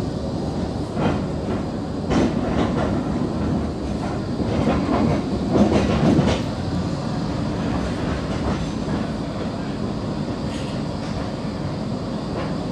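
Blackpool tram running on its rails: a steady rumble with groups of sharp knocks as the wheels pass over rail joints, loudest about five to six seconds in.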